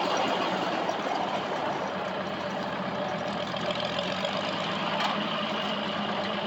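International Harvester 806 tractor engine running steadily.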